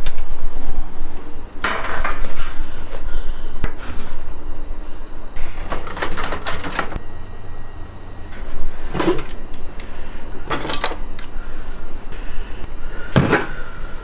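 Computer hardware being handled: a series of knocks and clatters from parts and a metal PC case, over a steady low rumble.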